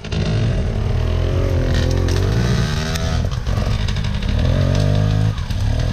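Dirt bike engine running at low revs, the revs rising and falling unevenly as the bike creeps through rough bush. It comes in abruptly at the start and dips briefly near the end.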